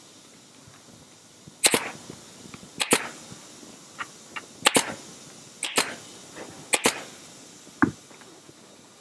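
Pneumatic staple gun firing about six times, roughly one shot a second, each a sharp crack and several doubled. It is driving staples through the cover's vinyl attachment flap into the plastic console lid frame.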